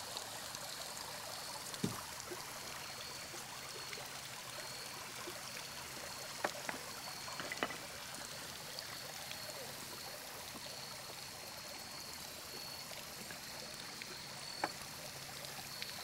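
Shallow creek water running and trickling over limestone ledges, a steady rush, with a few short clicks scattered through it.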